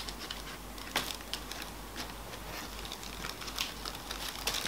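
Faint handling noises: scattered light ticks and soft rustles of packaging and a plush toy being handled, with one sharper tick about a second in.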